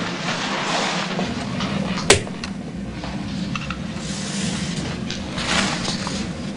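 Sheets of paper rustling as pages are handled, with a sharp click about two seconds in, over a steady low hum.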